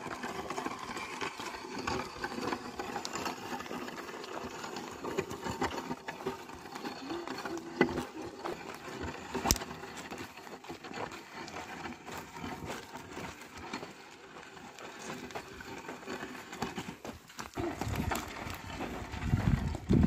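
A pair of yoked oxen pulling a wooden plough through dry, stony soil: hooves stepping and the plough scraping the earth, with a couple of sharp knocks midway and a low rumble near the end.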